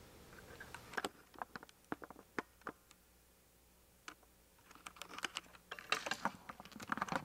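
Camera handling noise: irregular small clicks and taps of hands on the camera and its mount, a scattering about a second in, a pause, then a denser run of clicks near the end.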